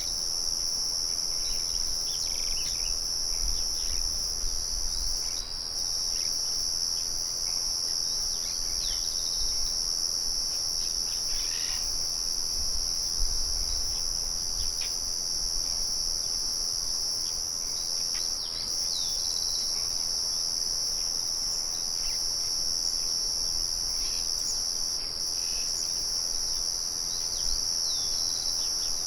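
Crickets chirping in a steady, continuous high trill, with short bird chirps and calls scattered through it. A faint low rumble comes and goes underneath.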